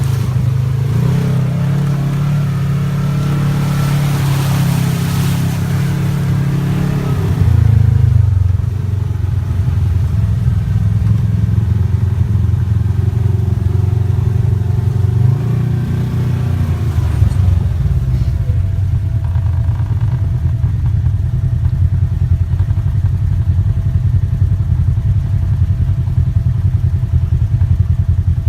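ATV engine running while riding, its note dropping twice, about eight seconds in and again near seventeen seconds.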